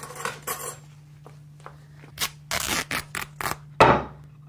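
Scissors snipping and ripping through linen wrapping on a parcel: a run of quick cutting strokes from about two seconds in, the loudest near the end.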